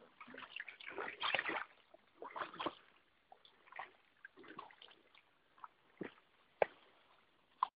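Kayak paddle strokes splashing and water sloshing around an inflatable kayak, in irregular short bursts, with a few sharp clicks towards the end.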